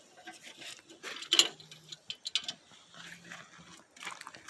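Scattered clicks and light metallic clinks of hand tools being handled during a brake pad job, loudest about a second in.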